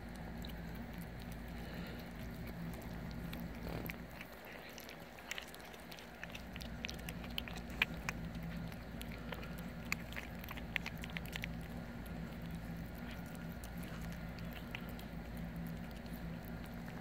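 Cats chewing and licking raw turkey giblets, with a run of short wet clicks and smacks thickest from about five to twelve seconds in, over a steady low hum.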